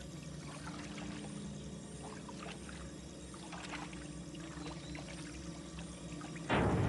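Quiet water sounds, a soft pouring and trickling over a faint low hum. About six and a half seconds in, a much louder, even rushing noise starts.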